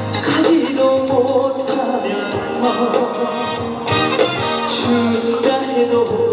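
Trot song music played live over a loudspeaker backing track, with a steady beat and held instrumental notes.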